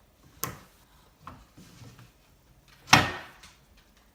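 A few knocks and thumps: a sharp knock about half a second in, a couple of light taps, then a much louder thump near three seconds in that rings off briefly.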